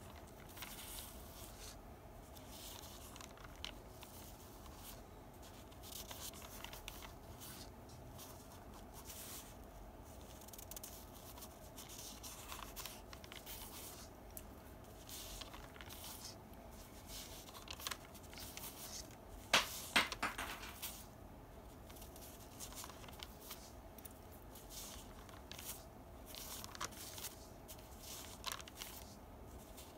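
Faint Sharpie marker tip scratching across thin rice paper in short, irregular drawing strokes, with light paper handling. There are a couple of louder sharp scrapes about twenty seconds in.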